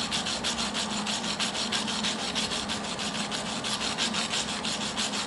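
MIG welding arc on aluminum with ER5356 wire under pure argon, fed through a standard MIG gun on a Millermatic 175. It gives a steady, fast, even crackle and hiss while a bead is run, then stops about the end. The welder suspects the heat is set too high, as the bead burns a hole where he stopped.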